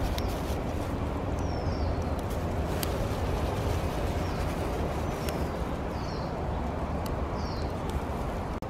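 Wood fire burning in an open barbecue pit, a steady low rush with scattered sharp crackles. A bird gives a short falling chirp several times.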